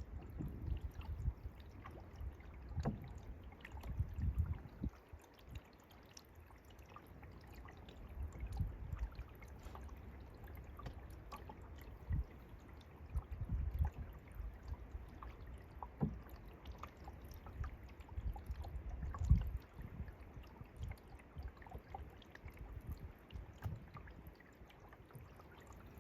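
Canoe being paddled: paddle strokes dipping and splashing in the water, with scattered small knocks and drips. Irregular low rumbles of wind on the microphone run underneath.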